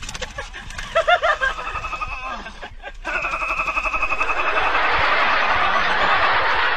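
Laughter: short snickering laughs about a second in. From about three seconds in comes a long, steady, high-pitched voice-like sound that grows louder toward the end.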